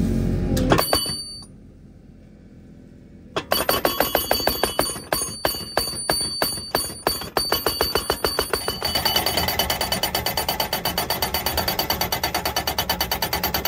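Hydraulic post driver hammering a wooden fence post, its metal hammer ringing with each blow. The strikes come irregularly at first, then about 9 s in settle into a fast, steady pounding of about six blows a second.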